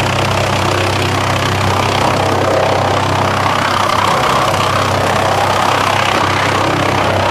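Drum chipper running with a steady low hum under a rough chipping noise as sawmill offcuts are fed by chain conveyor into the drum. The noise swells briefly near the middle.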